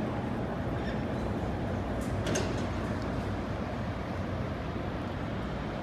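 Steady rumble of passing vehicles, with a brief high squeal about two seconds in.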